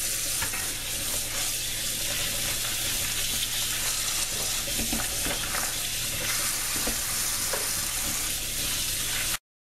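Kitchen faucet running a thin stream of water onto peanuts in a plastic colander in a stainless-steel sink: a steady hiss, with a few faint clicks as the wet peanuts are stirred by hand. The sound cuts off suddenly just before the end.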